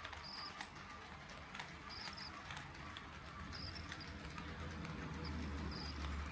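HO-scale model train, a KATO D51 steam locomotive model, running over the track: a steady clicking of wheels over rail joints with a low motor hum that grows louder about four seconds in as it comes closer. Short high-pitched chirps come through now and then.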